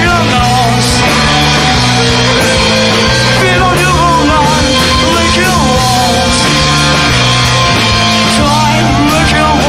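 Loud live rock band playing, with a bass line stepping between a few low notes under a dense wall of instruments and wavering, bending high lines above.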